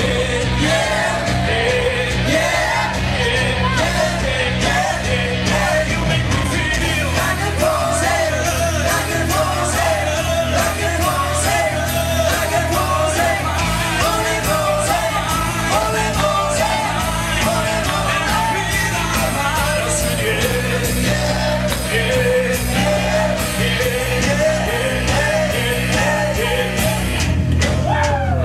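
Live band music: amplified singing over drums, guitar and keyboard, with people in the crowd yelling.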